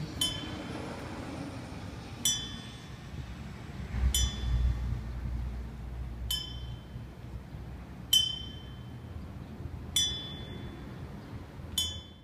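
A small, high-pitched bell struck seven times, about once every two seconds, each strike ringing briefly and dying away: a memorial tolling before a moment of silence.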